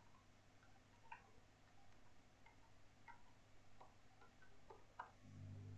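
Faint typing on a computer keyboard: a slow, uneven run of single key clicks. A low hum swells briefly near the end.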